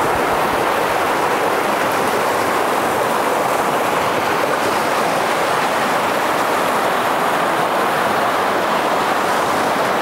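Shallow creek water rushing steadily over a rocky riffle.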